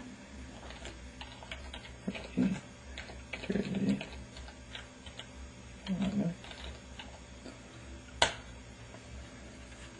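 Irregular light clicks of typing on a computer keyboard, with a few short low sounds between about two and six seconds in and one sharper click about eight seconds in.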